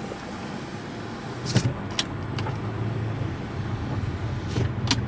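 Car cabin of a 2019 Mazda CX-5 under way: power windows closing, with a few sharp clicks about one and a half and two seconds in and again near the end. Engine and road noise grow steadily louder as the car picks up speed.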